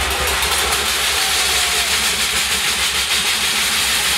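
Pastellessa band playing: wooden barrels and vats beaten and iron sickles struck, making a loud, dense, continuous metallic clatter over a low drumming rumble.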